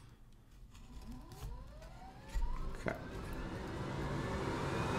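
Hakko fume extractor's fan motor spinning up after being switched on: a whine that climbs steadily in pitch over a growing rush of air, with a click near the middle.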